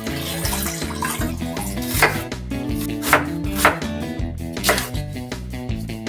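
Background music with a handful of sharp, irregularly spaced knocks of a knife chopping food on a cutting board, starting about two seconds in.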